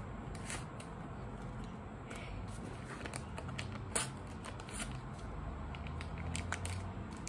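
Sticker packets being torn open and stickers handled: papery crinkling and rustling with scattered small clicks, one sharper click about four seconds in.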